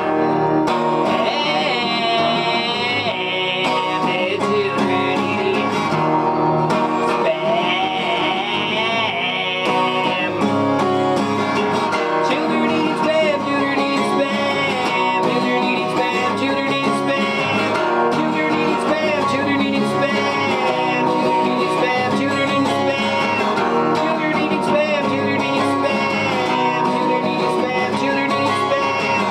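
Country-style song with plucked guitar.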